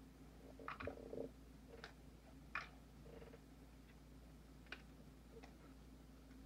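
Small snaps and clicks of cooked lobster shell being cracked and picked apart by hand: a handful of sharp clicks spread over several seconds, against a quiet room.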